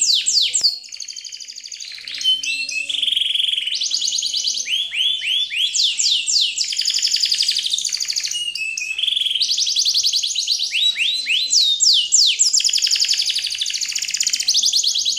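Songbird song: fast series of high chirps, each note sliding quickly downward, alternating with rapid trills, over faint background music.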